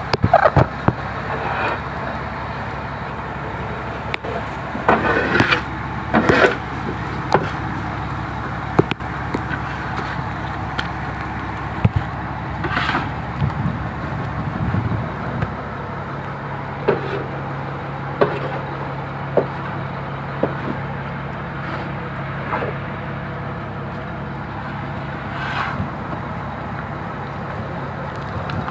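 A fishing boat's engine running steadily under a constant noise haze, with scattered short knocks and clatters, a few of them louder around five to seven seconds in.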